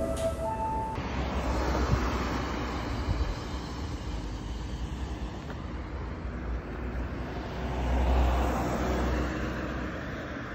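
Airliner jet engines heard from outside as a plane departs, a rumble with a hiss that swells about eight seconds in.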